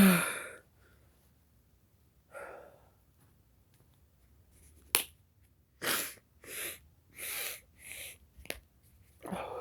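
A person sneezing loudly at the start, set off by black pepper. A series of sniffs and hard breaths follows, with two sharp clicks in between.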